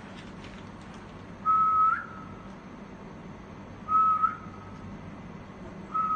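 A man whistling three short, level notes to a baby, each about half a second long and lifting slightly in pitch at its end, spaced about two seconds apart.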